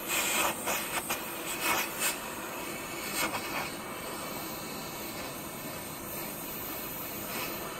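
Hand-held propane torch burning with a steady hiss as its flame heats a brass pump housing. The hiss surges louder several times in the first three seconds or so, then settles.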